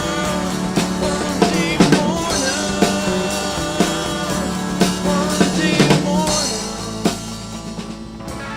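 Rock band recording playing the end of a song: drum kit, bass and other instruments under a sung vocal line. About six seconds in the drums drop out and a held chord rings on, slowly fading.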